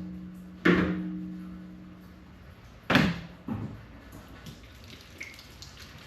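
Two sharp knocks about two seconds apart, the first leaving a ringing tone that dies away over a couple of seconds, with faint running water from a tap as hands are washed at a sink.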